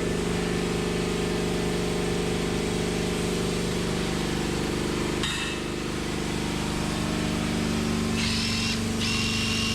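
A motor that has just started runs steadily at an even speed. A high, wavering whine joins about eight seconds in.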